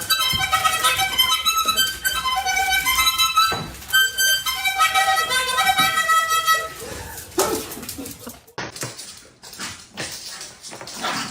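Music: a quick melody of short, stepped notes for about seven seconds, then it stops and a few scattered knocks and rustling follow.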